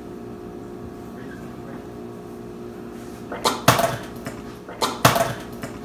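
A man retching loudly over a kitchen sink in two heaves, about three and a half and five seconds in, with liquid pouring from his mouth into the sink. The vomiting is faked: he is spewing out a mixed-up food concoction.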